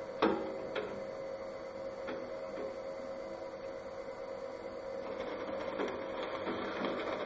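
Skil benchtop drill press running steadily as its bit drills a screw hole through the corner of a stack of plywood.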